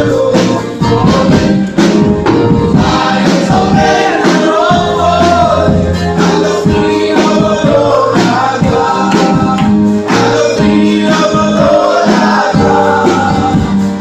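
Live gospel vocal group of men and women singing in harmony over a band of keyboard and drums, with a steady beat.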